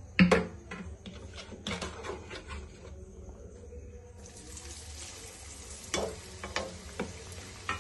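Metal slotted skimmer clinking against the dishes as potato sticks are scooped up, then hot oil in a wok sizzling steadily from about four seconds in as the cornflour-coated potato sticks go in to deep-fry. A few more clinks of the skimmer come over the sizzle near the end.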